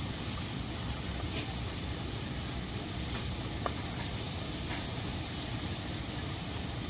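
Egg sambusas deep-frying in a pot of hot oil: a steady bubbling sizzle with an occasional faint pop.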